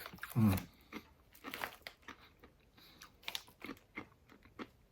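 Doritos tortilla chips being crunched and chewed in the mouth: a run of irregular, crisp cracks.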